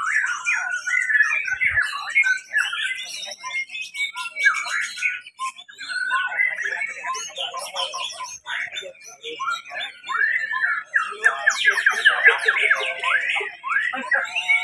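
Several caged white-rumped shamas (murai batu) singing at once, in rapid, varied whistled phrases, glides and trills that overlap without a break.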